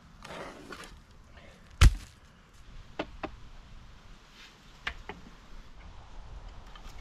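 Rocks being dropped into a dug hole to fill it. A short rustling scrape comes first, then one heavy thunk just under two seconds in, then a few lighter clacks of smaller stones.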